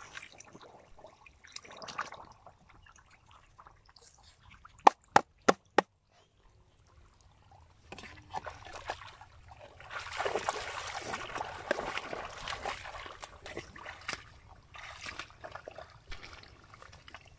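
Sloshing and splashing as feet wade through shallow muddy water, loudest and most continuous for a few seconds past the middle. Earlier, four sharp clicks come in quick succession.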